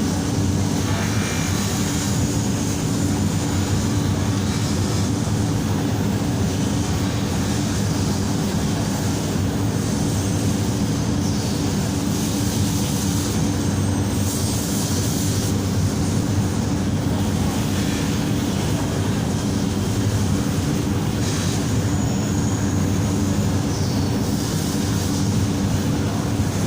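A motor running steadily with a constant low hum. Short, higher hissing strokes come and go over it several times.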